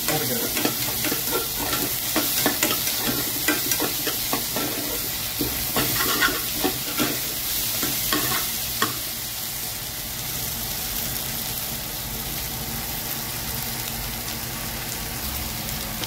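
A spatula stirring and scraping diced potato, onion and green chilli frying in oil in a stainless steel pan, over a steady sizzle. The stirring stops about nine seconds in, leaving the sizzle alone.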